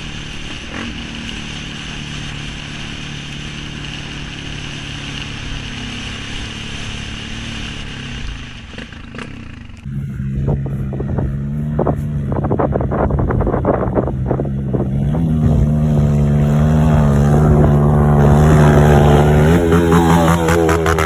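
Dirt bike engine running steadily, heard from on the bike as it rides a muddy trail. About ten seconds in, a different shot: a dirt bike climbing toward the listener, its engine getting louder and revving higher as it nears.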